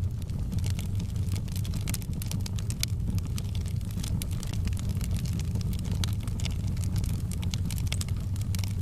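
Wood fire burning in a fireplace: frequent sharp crackles and pops over a steady low rumble.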